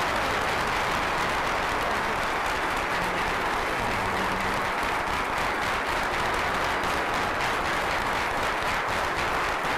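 Congregation applauding steadily, many hands clapping at once.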